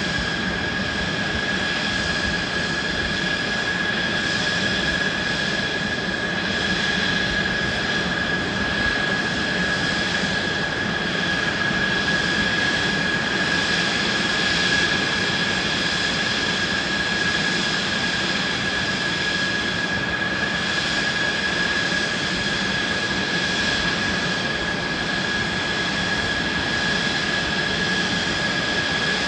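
Mitsubishi F-2 fighter's F110 turbofan engine idling on the ground after start: a steady high whine over an even rushing hum.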